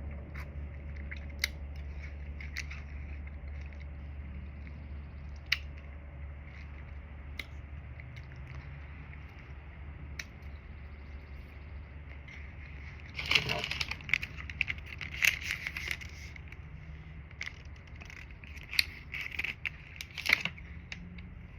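A low steady hum with scattered faint clicks, then two spells of crackling, crunchy clicks, one about two-thirds of the way in and one near the end.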